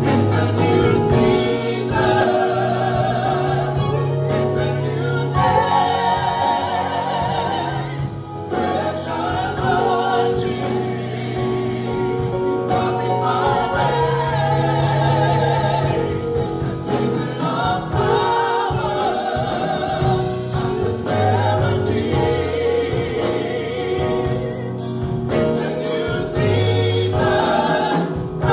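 Live gospel praise band: four voices singing the song in harmony over drums, electric guitar and keyboard, with sustained low notes underneath, in a continuous upbeat worship song.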